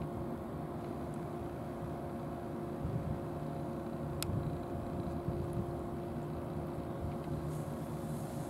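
Engine running steadily, a low drone holding several constant tones, with a single sharp tick about four seconds in.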